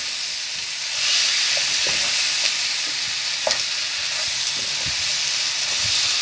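Whole quail sautéing with onions and tomatoes in hot oil, sizzling steadily while a wooden spatula stirs them, scraping and tapping now and then against the frying pan, with one sharper knock about three and a half seconds in.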